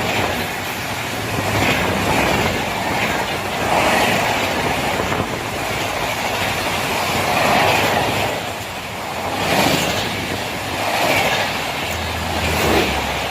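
Golden Temple Mail passenger train running at high speed, a loud rushing of wheels on rails with clickety-clack, swelling roughly every two seconds.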